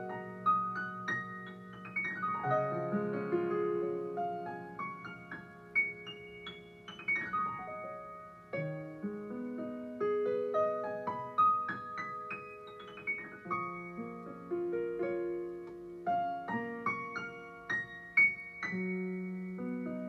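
Solo piano playing an improvised piece: held chords in the low and middle register under a melody of single notes above, with a quick downward run about two seconds in and another about seven seconds in.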